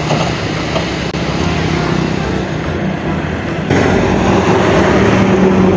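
Dump truck's engine running while its raised bed tips a load of soil out. The engine gets louder with a stronger steady hum nearly four seconds in.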